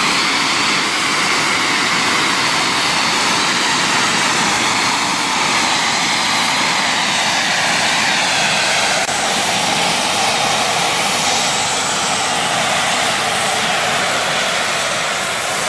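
Thompson B1 steam locomotive 61306 Mayflower blowing off steam: a loud, steady hiss as excess boiler pressure is vented into the air.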